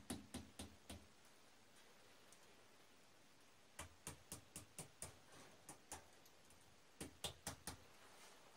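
Hammer tapping small nails into an adobe wall to pin steel reinforcing mesh: faint, quick strikes in three runs, about four at the start, about seven from about four seconds in, and about five near the end.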